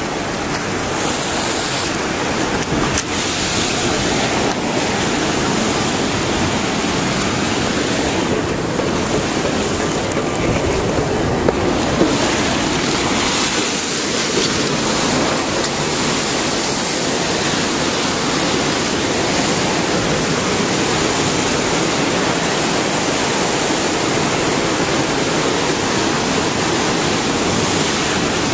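Tsunami water surging and churning in a steady, loud rush.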